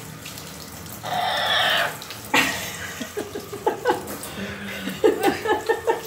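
Water from a handheld shower head spraying steadily onto a parrot and its cage in a bathtub. Over the water come short pitched sounds: a long harsh one about a second in and a quick run of brief ones near the end.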